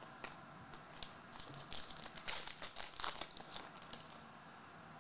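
Trading cards being slid and flipped through by hand: a string of faint papery rustles and flicks, busiest around the middle.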